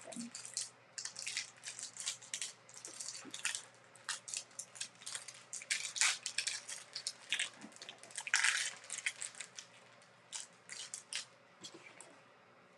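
Clear plastic trading-card wrapping and sleeves being handled and peeled open, crinkling in quick, irregular crackles. The loudest bursts come about six and eight and a half seconds in.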